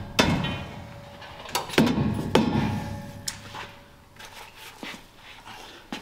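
Four sharp mallet blows on the driveshaft at the rear axle's pinion yoke, each leaving a brief metallic ring, knocking the U-joint loose to drop the driveshaft.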